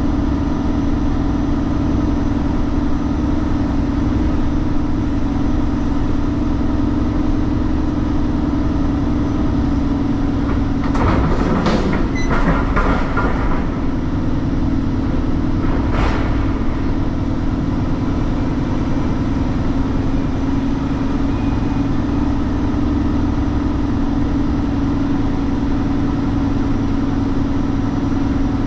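Semi-truck's diesel engine running steadily, heard from the cab, with a burst of rattling and clanking about eleven seconds in and a single sharp knock a few seconds later.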